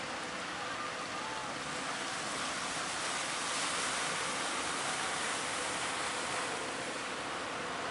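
Surf breaking and water rushing, an even steady hiss that swells slightly around the middle.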